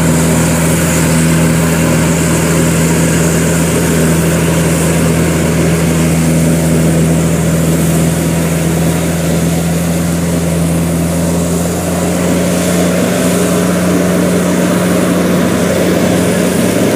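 Zoomlion EH100 rice combine harvester running at working speed while cutting and threshing rice: a loud, steady engine drone with a constant hum.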